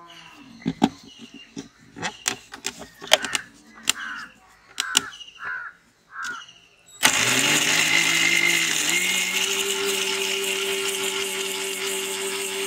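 Oreo biscuits clattering into a stainless-steel mixer-grinder jar, then the electric mixer grinder switches on suddenly about seven seconds in, its motor whining up to speed and running steadily as it grinds the biscuits to powder; its pitch steps up a little about two seconds after starting.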